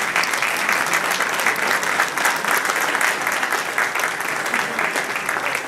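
A roomful of people applauding steadily, many hands clapping at once.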